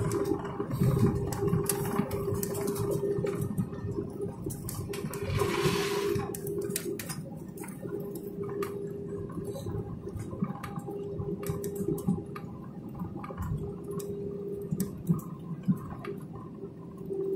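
Airliner cabin noise as the aircraft rolls on the ground: a steady hum with a mid-pitched whine that fades in and out, frequent small rattles and clicks, and a short rush of hiss about six seconds in.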